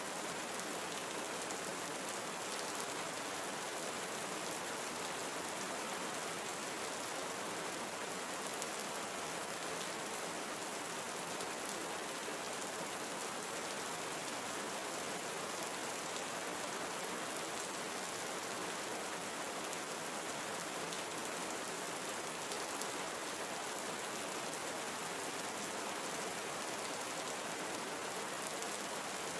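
Steady rain falling in tropical forest, an even patter of drops on leaves and ground.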